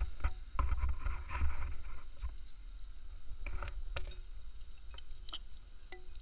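Scattered light clinks of a metal spoon and chopsticks against a ceramic soup bowl as the noodles are stirred and lifted, with a dull rumble of handling noise in the first two seconds.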